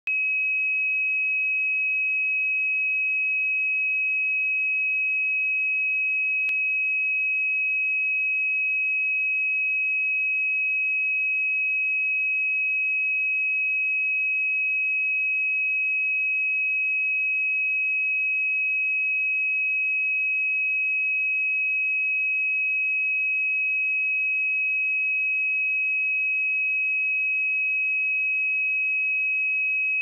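A steady, unbroken pure sine-wave test tone at 2551 Hz, a single high pitch with no overtones.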